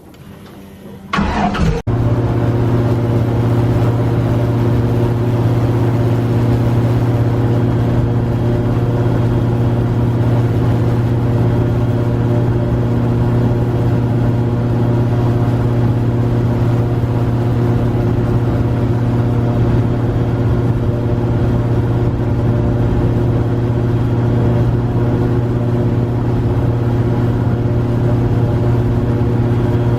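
Airboat engine and propeller running loud and steady. It comes in suddenly about a second in, as the boat gets under way.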